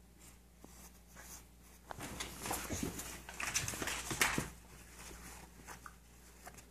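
Small dog scuffling and rustling with a plush toy on a carpet, with a few short dog noises. It is loudest for about two and a half seconds in the middle.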